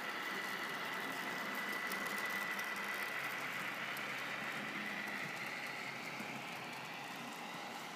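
N scale model passenger train running past: the locomotive's small electric motor whines steadily over the hiss and faint clicking of the wheels on the track. The whine fades after about five seconds as the locomotive moves on and the cars follow.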